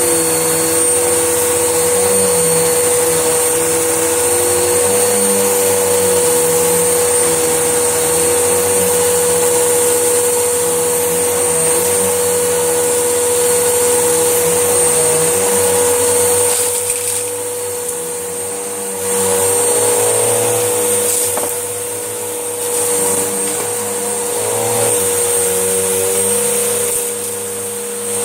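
Panasonic vacuum cleaner running at full power, sucking up a large pile of dust and dog hair, with a steady high motor whine. The sound dips briefly a few times in the second half.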